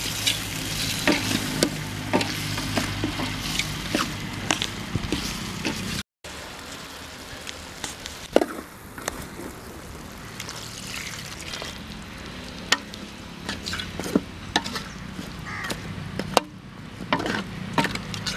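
Dry fish curry sizzling in a metal pot while a steel ladle stirs it, with many short clinks and scrapes of the ladle against the pot. After a brief break about six seconds in, the sizzle is quieter and the ladle clinks stand out more.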